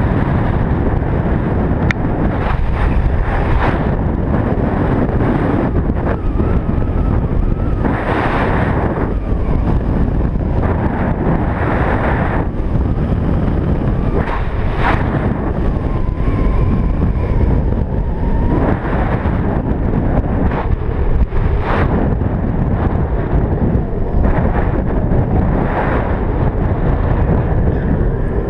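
Wind buffeting a small action-camera microphone on a longboard racing downhill at speed, mixed with the rolling roar of the urethane wheels on asphalt. It is loud and steady, with brighter hissing surges every few seconds.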